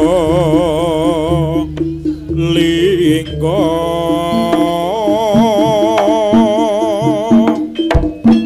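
Live Javanese jaranan ensemble music: a long, strongly wavering melody line held over kendang drums and gongs, with a few sharp drum strokes near the end.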